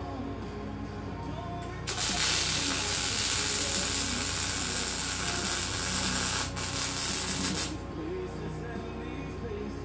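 MIG welding arc from a Lincoln Electric Power MIG welder, a steady hiss from about two seconds in until near the end, with a brief break about two-thirds of the way through. Background music plays underneath.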